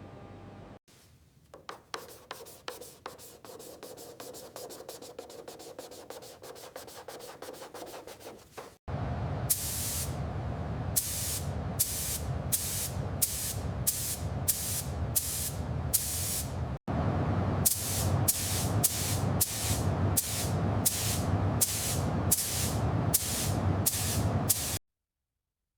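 Repeated abrasive rubbing strokes on a surface, quieter and quicker at first, then louder from about nine seconds in, with sharp strokes about once a second; it breaks briefly and then cuts off suddenly near the end.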